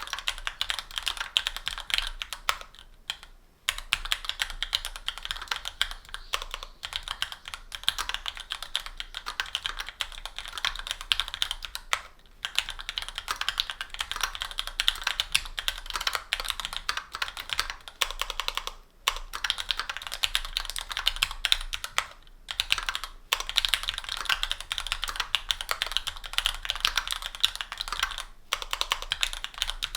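Steady typing on a Linworks Special Dolphin mechanical keyboard with stock Gateron Pro Yellow 50g linear switches, an aluminium plate, GMK keycaps and a 3.5 mm sponge. It is a dense run of keystrokes, broken by short pauses every few seconds.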